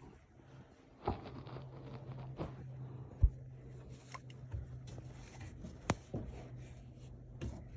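Handling noise from a phone being moved about under a car: scattered light knocks and clicks, the sharpest a little after three seconds in, over a faint steady low hum.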